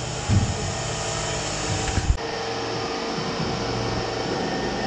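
Steady mechanical whooshing noise with a low hum, broken by a short knock about two seconds in, where the background shifts abruptly and a faint steady tone comes in.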